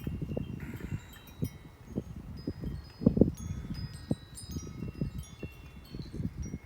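Wind chimes ringing irregularly in the wind, many thin high tones struck at random and fading, over gusts of wind rumbling on the microphone, the strongest gust about three seconds in.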